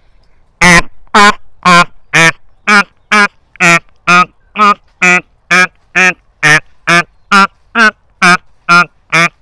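A man imitating frogs croaking, calling through his hands cupped over his mouth: a steady run of short, pitched croaks, about two a second, starting just under a second in.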